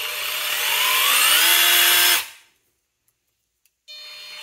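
RIDGID R86215K 18V half-inch cordless impact wrench spinning free with no load, its motor whine rising in pitch as the variable-speed trigger is squeezed further, then cutting off about two seconds in. After a short pause and a couple of faint clicks, it starts again near the end and begins to rise.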